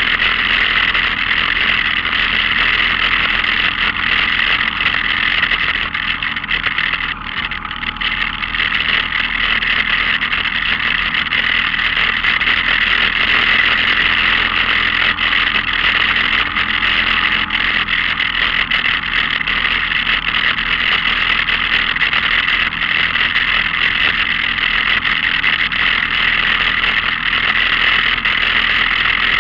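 Off-road vehicle's engine running steadily as it drives along a rough dirt trail, picked up by a camera on the hood, with a steady hiss over it.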